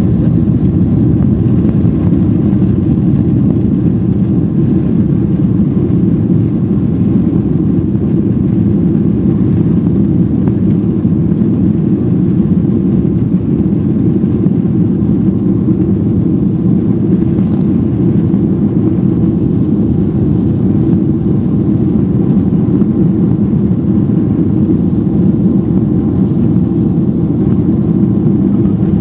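Steady jet-engine rumble inside the cabin of a Boeing 767-400ER as the airliner taxis, heard from a window seat behind the wing.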